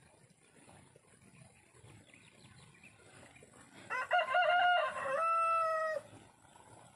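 A rooster crowing once, about four seconds in: a broken opening followed by a long held final note.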